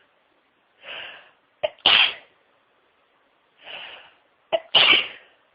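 A person sneezing twice, about three seconds apart, each sneeze preceded by a quieter in-breath, in the middle of a sneezing fit.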